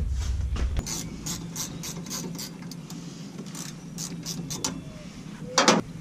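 Hand ratchet wrench clicking in quick, uneven runs of about four or five clicks a second, with a louder sharp metallic knock near the end.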